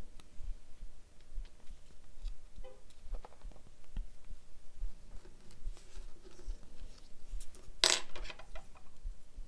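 Small clicks and handling sounds as a paper quilling strip is curved around a crochet hook and pressed into place. About eight seconds in there is a short, sharp clatter as the crochet hook is set down on the wooden desk.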